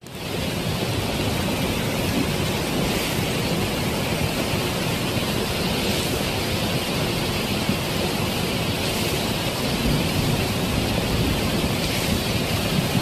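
Muddy flash-flood water rushing in a steady, unbroken noise.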